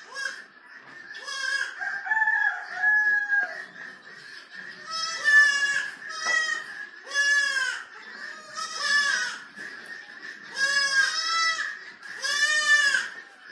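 Goats bleating repeatedly: about ten short, wavering calls from several animals, one after another.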